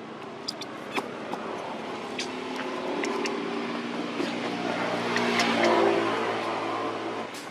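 A motor vehicle's engine passing nearby: a steady hum that grows louder, peaks about six seconds in and cuts off abruptly near the end, with a few scattered sharp clicks.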